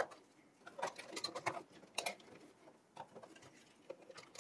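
Light plastic clicks and knocks as the HP ProLiant ML330 G6's blue plastic front fan housings are handled and pushed into place in the server case, with a sharper click about two seconds in.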